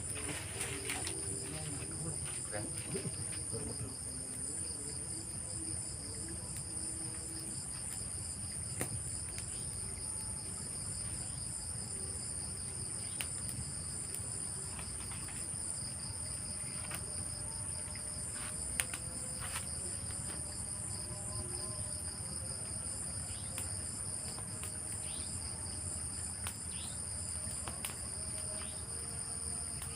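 Crickets and other night insects trilling continuously at two high pitches, the lower trill finely pulsed. Scattered faint clicks, one sharper about two-thirds of the way through.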